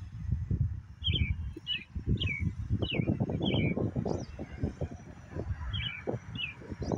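A bird calling over and over in short, quick downward-slurred chirps, about two a second, with a pause in the middle, over loud gusty wind buffeting the microphone.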